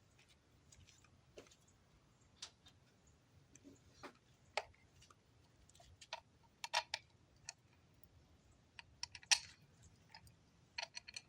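Scattered light clicks and taps from a mirror's mounting hardware and a hand tool being worked, irregularly spaced, with a quick run of clicks near the end.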